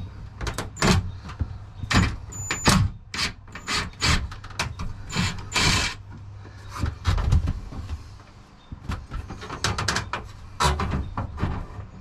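Cordless drill driver running in short bursts as it backs screws out of a shower-door frame, mixed with clicks and knocks of the bit and metal track.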